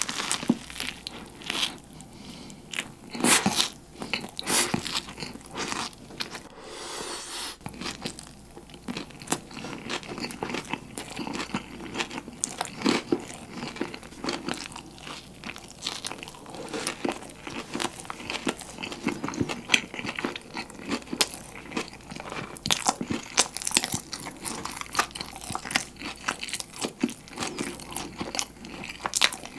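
Close-miked biting and chewing of a chicken burger, a soft bun around crispy fried Cajun chicken, with many sharp, irregular crunches.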